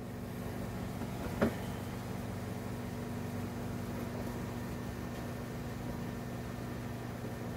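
A steady, low machine hum, with one short knock about a second and a half in.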